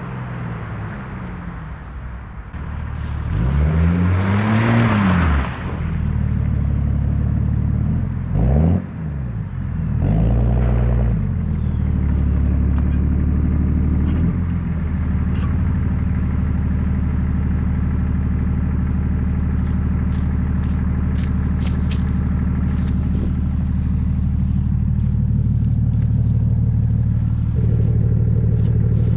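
BMW 730d E38's 3.0-litre inline-six diesel with a straight-piped dual exhaust: a free rev that rises and falls a few seconds in, a short blip, another brief rev, then steady idling with a deep rumble. A scatter of light clicks in the second half.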